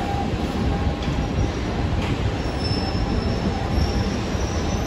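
Heritage passenger carriages rolling past along a station platform: a steady low rumble of wheels on rail, with a thin high wheel squeal coming in about halfway through.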